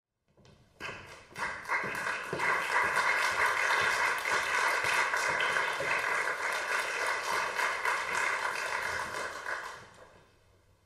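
Audience applauding, starting about a second in, holding steady, then dying away near the end.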